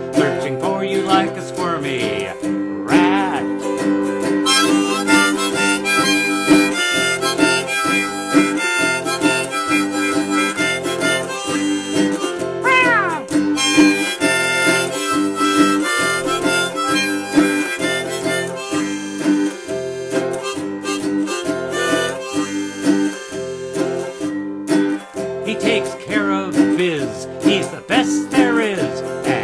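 Autoharp strummed steadily while a harmonica in a neck rack plays the melody over it, as an instrumental break in a folk song. A voice sings briefly over the autoharp near the start and again near the end.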